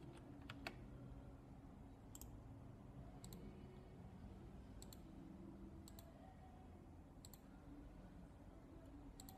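Faint computer mouse clicks, about seven of them spaced a second or so apart, some doubled, over a low steady room hum.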